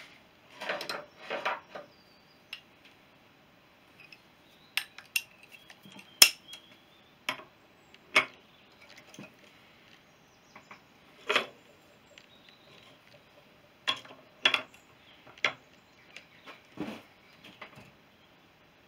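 Steel socket tools and a wrench clinking against a motorcycle's steel drum-brake plate and spindle nut: scattered, irregular metallic clicks and clinks, with two short rattling clusters near the start.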